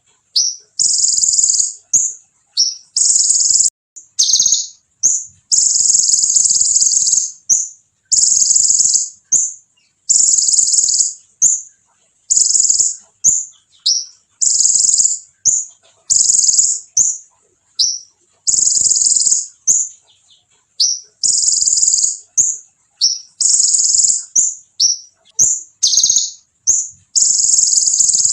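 A konin songbird singing hard in a long, insistent run of high, shrill rolling trills, each lasting about half a second to two seconds, with short chips and short gaps between them.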